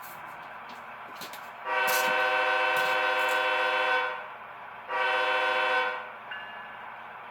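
HO-scale model diesel locomotive's sound decoder playing a chime air horn through its small speaker: a long blast of about two seconds, then a shorter one about a second later, over a steady running noise.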